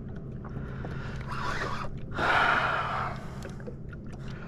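A person's heavy breaths: a short breath about a second in, then a longer, louder gasp about two seconds in.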